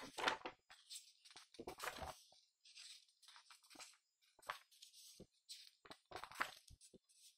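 Faint rustling of the paper pages of a printed question booklet as they are turned and handled, in several short bursts.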